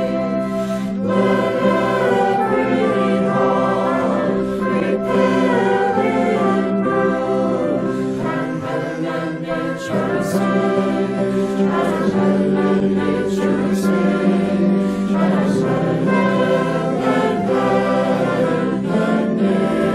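Choir singing, several voices in sustained harmony over a steady low held note.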